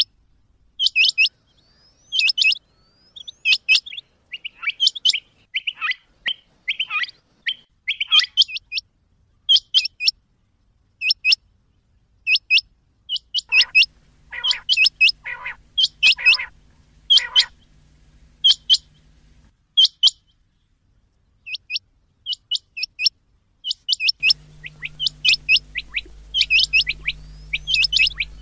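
Rain quail calling: short, sharp, high whistled notes, repeated in quick twos and threes.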